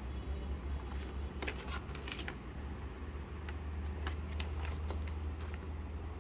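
Model-kit box contents such as the paper manual and plastic bags being handled: scattered light rustles and clicks, in two clusters, over a steady low hum.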